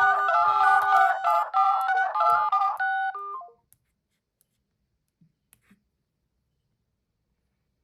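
Smartphone incoming-call ringtone: an electronic melody of short notes over a low beat, cutting off about three and a half seconds in. A few faint clicks follow.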